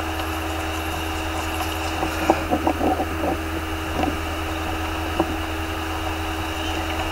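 A steady mechanical hum, a low drone with a thin higher whine held over it, and a few light clicks and taps about two to three seconds in and again around four and five seconds.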